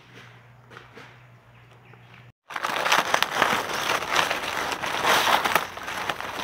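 Dry leaf litter crackling and rustling close up as a gloved hand digs a mushroom out from the leaves. It starts suddenly about two and a half seconds in, after a quieter stretch with a faint low hum.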